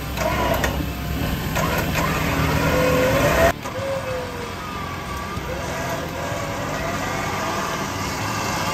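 A four-wheel-drive vehicle's engine running and revving on a dirt track, cut off suddenly about three and a half seconds in. What follows is a quieter stretch with a wavering tune over it.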